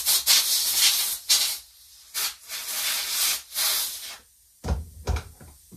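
Several short hissing blasts of compressed air from an air-compressor blow gun, blowing out small carburettor parts, the last ending about four seconds in. A few light knocks follow near the end.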